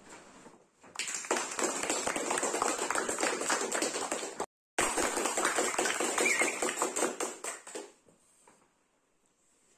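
Applause: many hands clapping together, broken by a sudden brief cut about halfway through, then dying away about eight seconds in.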